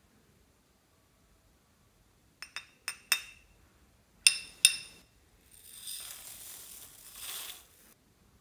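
Small ceramic scoops clinking with a bright ring, four quick clinks and then two louder ones. They are followed by about two seconds of rustling patter as seed beads and sequins are poured onto the slime.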